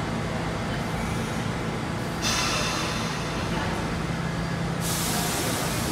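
R46 subway train pulling slowly into a station, rumbling with a steady low hum. A hiss of air starts suddenly about two seconds in, and a louder, higher hiss of the air brakes comes near the end.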